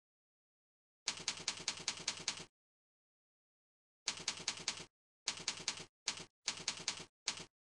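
Cursor click sound effects played by CursorXP software, coming in quick runs of sharp clicks, several a second, that stop abruptly between runs. The longest run is about a second in; shorter runs and single clicks follow in the second half.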